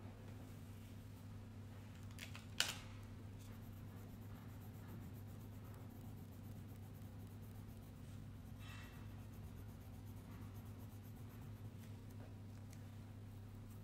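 Crayon scratching faintly on paper as a drawing is coloured in, over a steady low hum, with one sharp click about two and a half seconds in.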